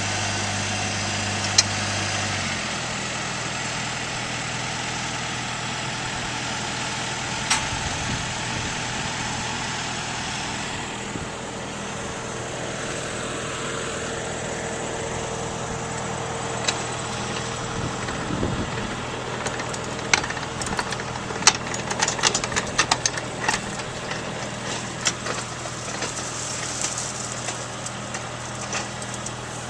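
A farm machine's engine running steadily, its low pitch dropping a little about two and a half seconds in. Scattered clicks and rattles come in over the last third.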